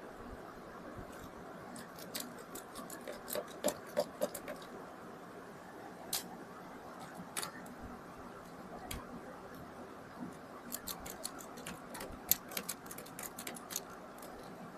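Small irregular clicks and ticks of a precision screwdriver working screws out of a laptop's plastic bottom panel, coming in short clusters.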